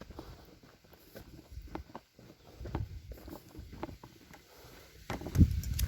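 A large plastic tarp being handled and rolled up on the ground: irregular soft thuds and rustles, with a louder thump about five seconds in.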